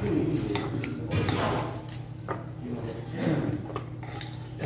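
Metal kitchen scissors snipping beef short ribs in a pot of soup, clicking and clinking against the pot in scattered strokes, with faint voices in the background.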